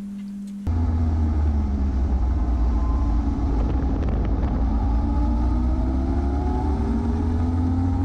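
Motorcycle riding heard from an on-bike camera: heavy wind rumble on the microphone, with the engine note slowly rising and falling. It starts abruptly under a second in, after a faint steady hum.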